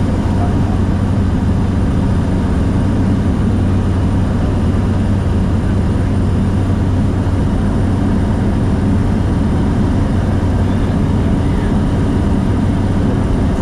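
Steady, unbroken drone of a small propeller aeroplane's engine in flight.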